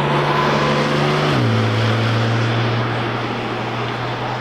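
A car at speed on the track, its engine note steady and then stepping down in pitch about a second and a half in.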